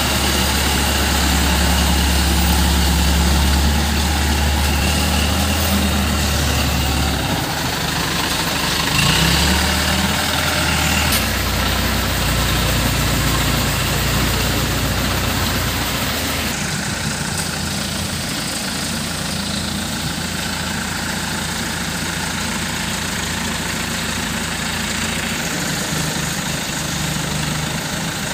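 Diesel engine of an ACE Rhino 110C pick-and-carry crane running, louder and shifting in pitch through the first half, then settling to a steadier, quieter idle from a little past halfway.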